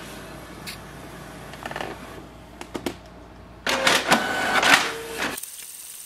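Canon Pixma MG2522 inkjet printer printing its print-head alignment page. Scattered clicks from the mechanism are followed, about four seconds in, by a louder stretch of mechanical whirring and clicking as the paper feeds and the print head moves. Near the end the sound gives way to a faint, steady high hiss.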